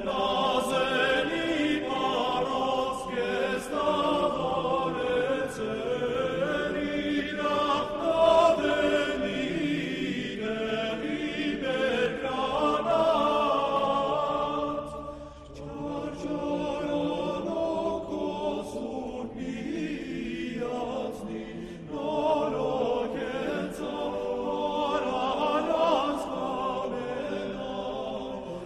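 Choir singing chant-like music in long phrases, with a short pause about halfway through.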